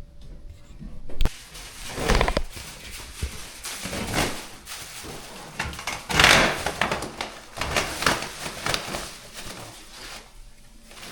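Irregular scraping, rustling and knocking as the last pieces of old, moldy ductwork are pulled out of a ceiling opening, with a sharp knock about a second in and a loud rasp about six seconds in.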